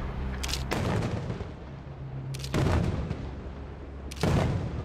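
Aerial firework shells bursting: three loud bangs about a second and a half apart, each dying away in a long rumbling echo, with a sharper crack just before the first two.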